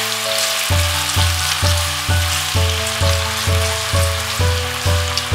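Chopped onions sizzling as they fry in hot oil in a kadhai while being stirred. Background music plays under it, with a low bass beat coming in under a second in at about two beats a second.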